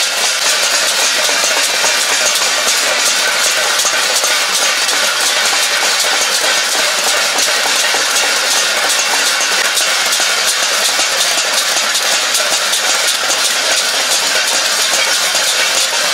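A crowd beating stainless steel plates with spoons in a dense, steady metallic clatter: empty plates banged in protest over hunger.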